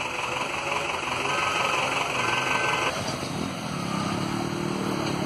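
Road traffic on a waterlogged street: a steady hiss of vehicles and tyres on the wet road. About three seconds in, the sound changes, and a motorcycle engine runs close by.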